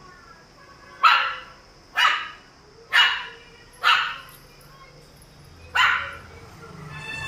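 A Shih Tzu barking five times: short, sharp single barks about a second apart, with a longer pause before the last one.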